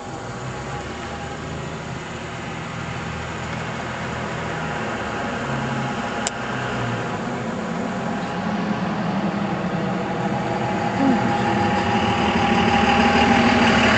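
A pickup truck engine idling steadily, growing steadily louder as it comes closer.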